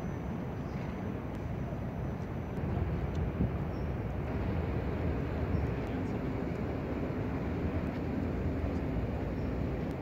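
Steady low rumble of distant vehicle noise that grows louder about three seconds in and stays up, with a faint steady hum joining it in the second half.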